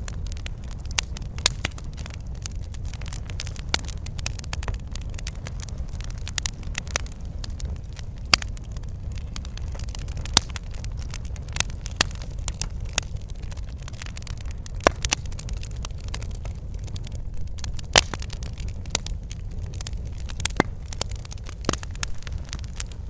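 Wood fire crackling in a fireplace: a steady low rumble with frequent, irregular sharp pops and snaps.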